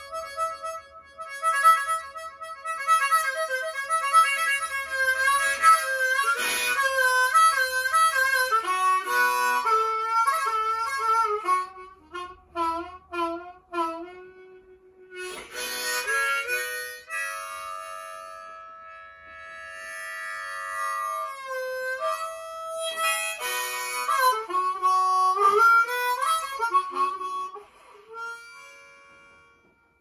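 Harmonica played solo: a melody of held, wavering notes with pitch bends and quick note changes, dying away near the end.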